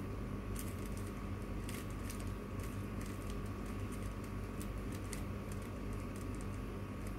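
Plastic 3x3 puzzle cube being turned by hand, its layers clicking in quick, irregular runs, over a steady low hum.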